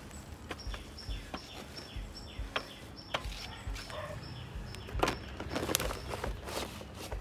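A bird calling a quick series of short, falling chirps, about two a second, over the scraping of a wooden spoon stirring cooked rice in an aluminium pot. Near the end come louder scrapes and crackles as hands handle a banana leaf.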